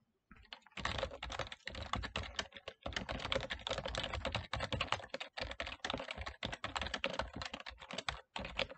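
Fast typing on a computer keyboard: a dense run of key clicks that starts about a second in, with a few short pauses.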